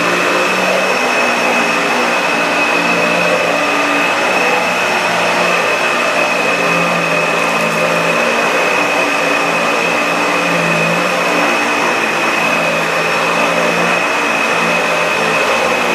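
Dyson DC65 upright vacuum cleaner running steadily while vacuuming: a constant high whine over a loud rush of air, with a lower hum that wavers in strength.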